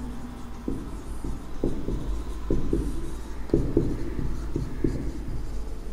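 Marker pen writing on a whiteboard: a run of short, irregular strokes and taps as letters are written.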